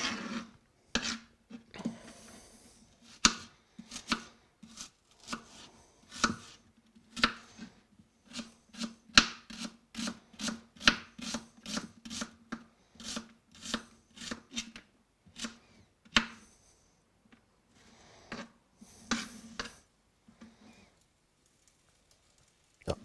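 Kitchen knife chopping an onion on a plastic cutting board: a run of sharp knocks of the blade on the board, about two a second through the middle, with a few brief scrapes as the pieces are pushed together.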